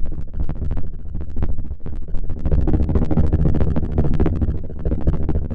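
Synthesized helicopter sound from the O'Malley Sound Cobra 1 synth plugin: rotor blades chopping rapidly over a low rumble. It grows louder and fuller about two and a half seconds in.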